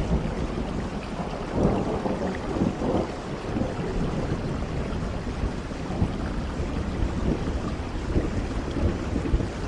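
Steady rain noise with a low rumble underneath that swells a couple of times in the first few seconds.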